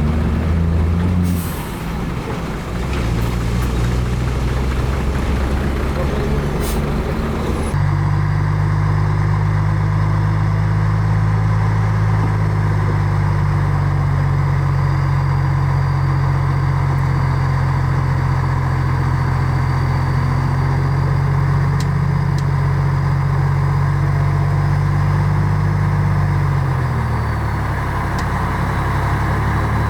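Heavy diesel engines of earthmoving machinery, a bulldozer and dump trucks, running steadily. The sound changes abruptly about eight seconds in, and the engine pitch drops near the end as one slows.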